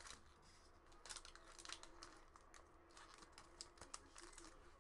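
Wrapper of a 2018 Upper Deck Goodwin Champions trading-card pack being torn open and crinkled by hand: a faint run of irregular crackles and rustles.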